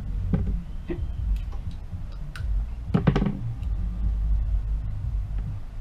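Small clicks and taps of hands handling adhesive tape and a tablet screen on a workbench, over a steady low rumble. About three seconds in comes a single short, louder rasp.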